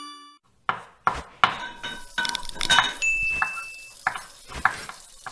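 A quick run of kitchen clatter: utensils clinking and knocking against pots and dishes, some strikes ringing briefly, with a high steady ring about three seconds in that lasts about a second.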